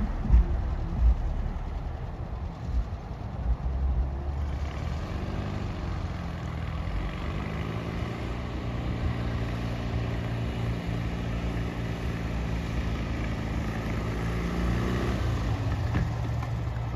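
Air-cooled flat-four engine of a classic Volkswagen bus running as the bus drives along the street. Its pitch rises and falls about five seconds in, then holds steady. Wind buffets the microphone in the first few seconds.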